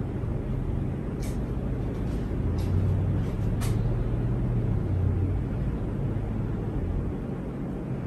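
Harbor Breeze Edenton ceiling fan running: a steady low hum and rumble of moving air, with a few light ticks in the first half.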